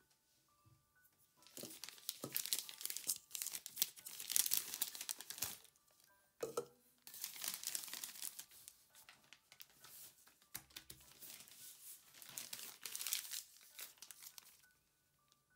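Plastic piping bag crinkling and rustling in three long spells as it is handled, pressed against a wooden table and twisted into a cone, with a short knock between the first and second spells.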